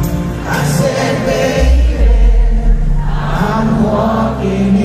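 Live pop concert: male singers performing with a band. A deep bass note comes in about one and a half seconds in.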